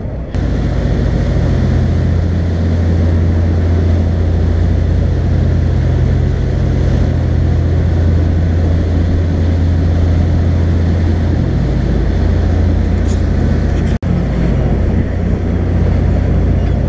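A charter fishing boat's engine running steadily while under way, a low, even drone with the wash of water beneath it.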